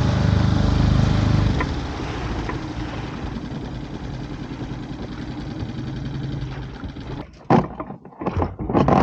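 Tohatsu 6 hp outboard motor running, throttled back about a second and a half in and running more quietly, then stopping after about seven seconds. A few sharp knocks and clatter follow near the end.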